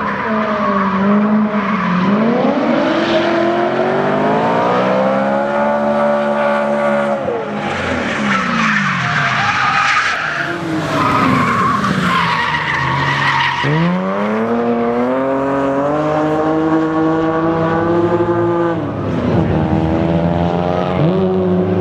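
BMW M3 E92's V8 revving up and down at high revs as the car drifts, with tyres squealing and skidding, loudest in the middle. Later a BMW M3 E36's straight-six revs hard while it drifts with tyre squeal.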